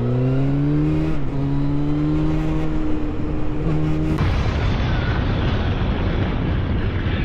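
Motorcycle engine accelerating. Its pitch climbs, drops at a gear change a little over a second in, then climbs slowly again. About four seconds in it gives way to a steady rush of wind and road noise with a low, even engine hum.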